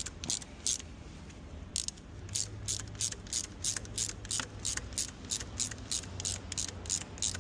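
Quarter-inch-drive ratchet clicking as it winds an M8 x 1.25 thread tap down a bolt hole. It gives two clicks, pauses for about a second, then settles into a steady run of quick, even clicks at about four a second over a low steady hum.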